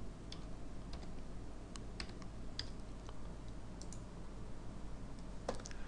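Computer keyboard keys tapped singly and in short runs as a number is typed in, with a louder click near the end. A faint steady low hum lies underneath.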